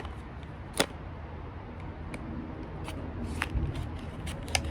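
Drill bit set's packaging being cut and pulled open with a box cutter: scattered clicks, crinkles and scraping, with a sharp snap about a second in.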